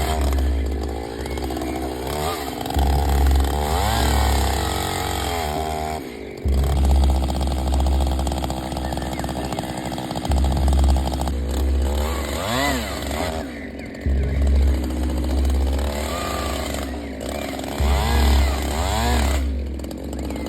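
Chainsaw running while cutting a tree. Its engine revs up and falls back several times, with a steady high-speed stretch in the middle.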